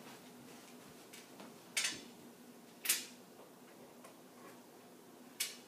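Three sharp clicks from handling things at a computer desk: one about two seconds in, another a second later, and a last near the end, with a few fainter ticks between them over a faint steady low hum.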